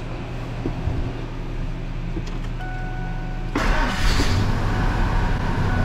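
1999 Ford F-150's 5.4-litre two-valve Triton V8 starting for the first time after its spark plug threads were repaired with an insert: a steady high tone comes on, then about three and a half seconds in the engine cranks and fires suddenly and settles into a slightly rough idle.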